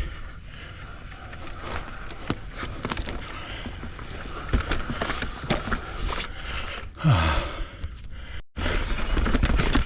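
Mountain bike riding over rough trail: tyre noise with frequent rattling clicks and knocks from the bike. The sound cuts out for a moment about eight and a half seconds in, followed by a louder low rumble.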